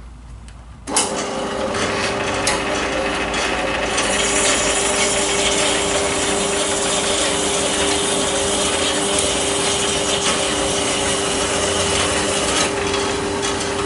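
A power saw switches on about a second in and runs steadily with a constant hum, cutting a 30 mm acetal plastic rod to length.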